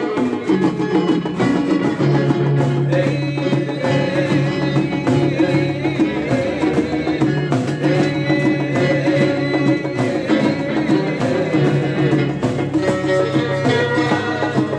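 Traditional folk music played live, with plucked string instruments and percussion, continuing steadily.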